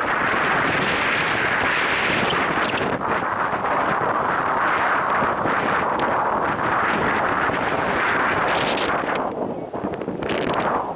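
Strong wind buffeting the microphone: a dense, steady rushing noise that eases briefly near the end.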